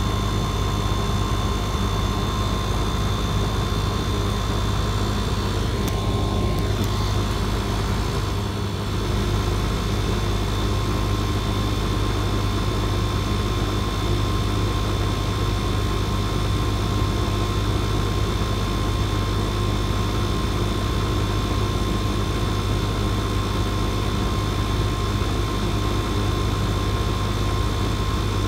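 An R-410A central air conditioner's outdoor condensing unit running steadily: a constant compressor and condenser-fan hum with faint steady higher tones.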